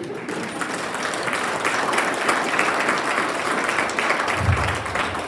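Audience applauding: steady, dense clapping from a roomful of people.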